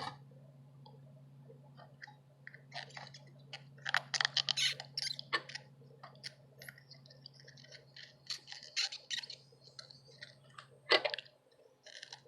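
Irregular small clicks, taps and scrapes of handling at a workbench, thickest about four seconds in and again around eight to ten seconds, with a sharper knock near eleven seconds, over a steady low hum.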